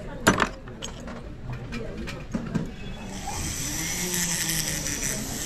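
A sharp clack about a third of a second in, then from about three seconds in a jeweler's flex-shaft rotary tool starts and runs with a steady high whine, a small disc fitted in its handpiece.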